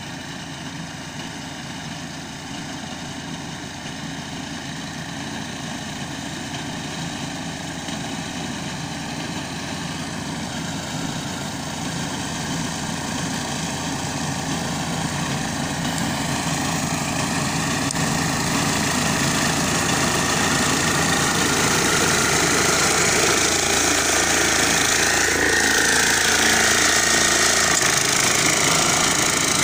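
Balwaan Power Reaper's 5 HP air-cooled diesel engine running steadily under load as the reaper cuts wheat, growing steadily louder as the machine comes close.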